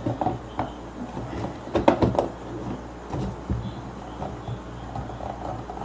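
Knocks and clicks of a voltage stabilizer's casing cover being handled and fitted back on, loudest about two seconds in, over a steady low hum.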